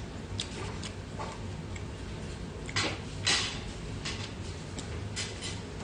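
Ramyeon noodles slurped in two quick loud sucks about three seconds in, with light clicks of metal chopsticks against the metal pot around them.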